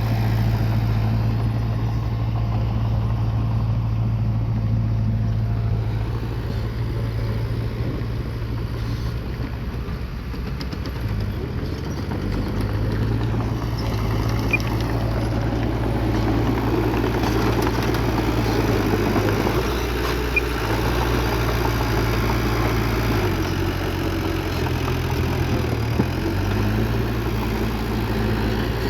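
Bulldozer's diesel engine running steadily, its pitch dipping and rising a couple of times as the load changes.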